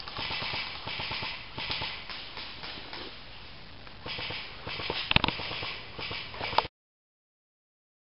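Rustling and crunching movement noise in swells, with scattered sharp clicks and one sharp snap about five seconds in. The sound cuts out completely near the end.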